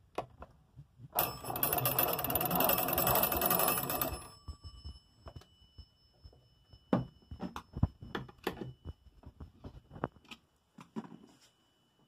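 Twin gong bells of an early-1900s wooden magneto wall telephone ringing rapidly for about three seconds, then a high ring lingering as they die away. Scattered clicks and knocks follow.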